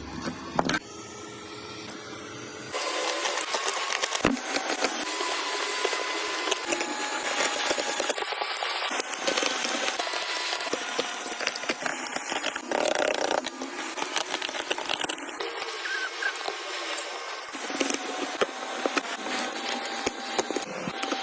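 Hand tools scraping, rubbing and clicking against a phone during iPhone back glass repair, a continuous scratchy noise with frequent small clicks.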